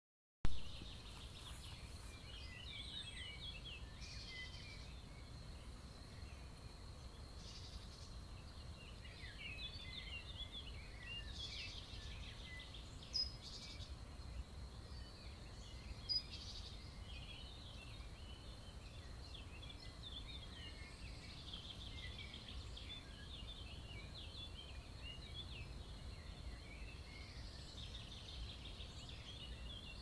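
Small songbirds chirping and twittering continuously in overlapping short calls, with two sharper, louder calls about 13 and 16 seconds in. A steady low rumble runs underneath.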